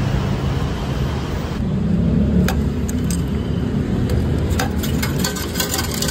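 Steady rumble of traffic and transit-station noise with a low hum. Sharp clicks come about halfway through, and a quick run of metallic clicks near the end as a token is handled at the stainless-steel slot of a ticket gate.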